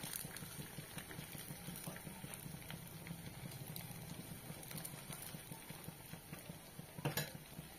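Sabudana pakoras deep-frying in hot oil in a kadhai: a steady sizzle with small crackles as they are turned with a slotted ladle. A short knock near the end.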